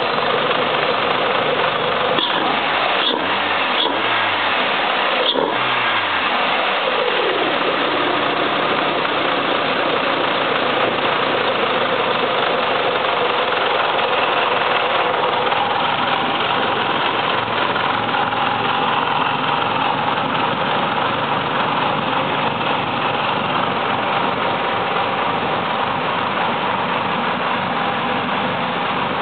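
Renault Sport 2.0-litre 16-valve four-cylinder engine running through an open cone air filter. The revs rise and drop back a few times in the first seven seconds or so, then it settles to a steady run.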